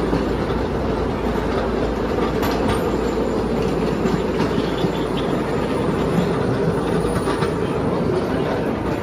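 Small open-air ride train running along its track, a steady rumble with the clatter of wheels on rails, heard from a seat on board.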